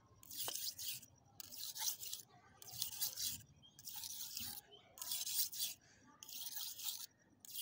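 Knife blade scraped in long strokes across a wet red sharpening stone, about six strokes a second apart, taking the burr off the edge.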